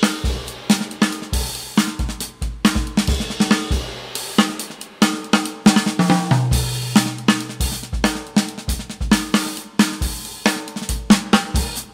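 Upbeat boogaloo-style background music: a busy drum kit beat with snare, hi-hat and bass drum over a bass line.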